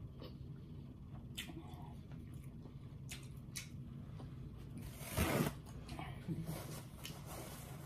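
Close-up eating sounds from a seafood boil meal: wet chewing and smacking with scattered small clicks, and a louder rushing sound lasting about half a second about five seconds in.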